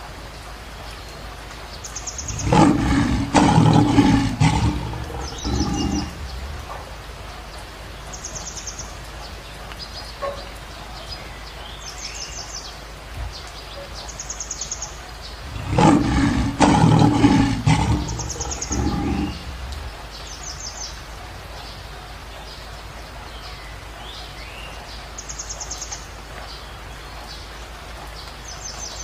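Lion roaring in two bouts, a couple of seconds in and again about sixteen seconds in, each a few seconds of deep, loud calls. Between the bouts there is a steady background hiss, with short high bird chirps now and then.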